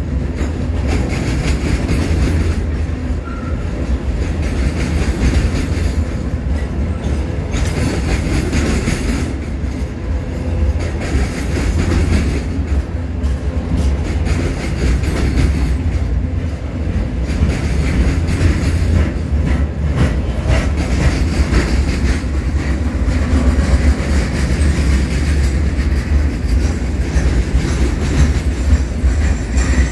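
CSX freight train's gondola cars rolling past close by: a steady rumble of steel wheels on the rails, with irregular clacks.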